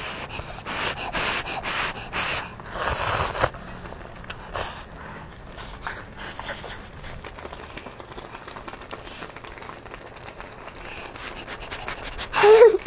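Noodles being slurped: several loud slurps in the first few seconds, then quieter chewing, and near the end a short, loud slurp with a wavering pitch.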